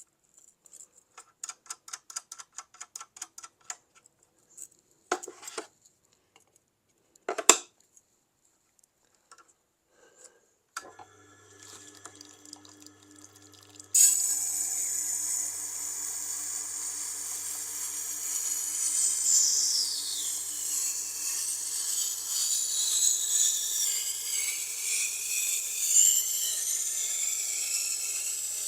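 Rapid clicking and a couple of knocks, then a Tormek wet grinder's motor starts with a steady hum about eleven seconds in. From about fourteen seconds a steel knife blade grinds against the turning wet stone, a loud steady scraping that lasts to the end.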